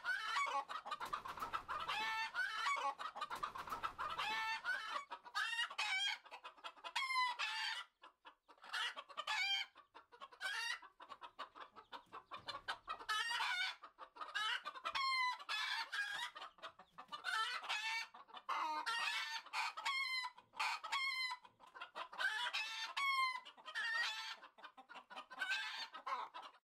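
A flock of chickens clucking and calling, a dense run of short, repeated calls with brief lulls, stopping abruptly just before the end.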